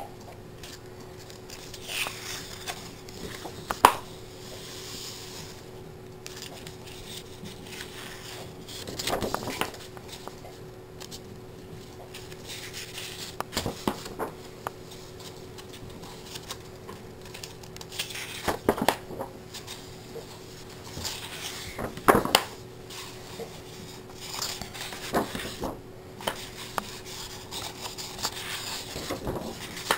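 Paper pages of a large colouring book being turned one after another, each a short rustling swish, about eight times at intervals of a few seconds, over a faint steady hum.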